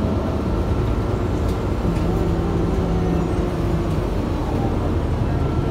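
Steady engine and road rumble heard from inside a moving city bus.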